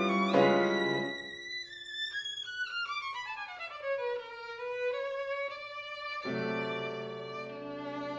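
Solo violin playing a run of notes that steps down in pitch and then climbs again. Piano chords come in with the violin about six seconds in.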